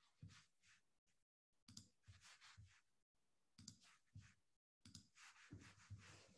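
Near silence on a video-call audio line, with a few faint, scattered soft clicks and small noises and brief total dropouts.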